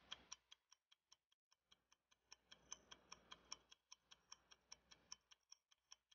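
Faint clock-ticking sound effect for a countdown timer: quick, even ticks, about five a second.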